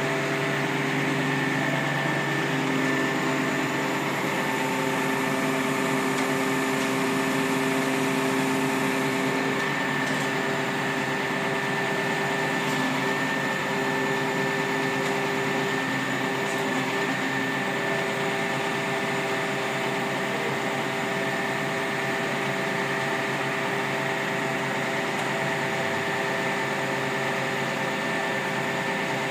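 Fire engine hydraulic platform running: a steady mechanical hum of the truck's engine and hydraulic pump powering the boom, with several held tones. A lower tone fades out after about ten seconds.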